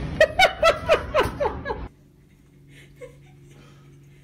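A person laughing, a quick run of about eight falling 'ha's that cuts off abruptly about two seconds in. A quiet, low, steady hum follows.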